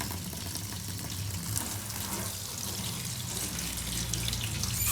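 Water running steadily while the wet-sanded plastic shell pieces of a computer mouse are rinsed in it, clearing off the sanding residue before painting.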